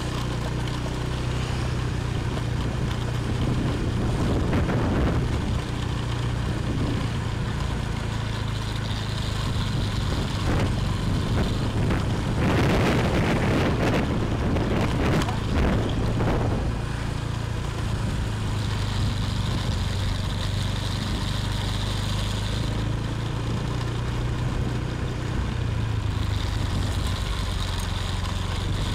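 Motorbike engine running steadily at low riding speed, heard from the bike itself as a low hum, with a few seconds of louder rushing noise midway.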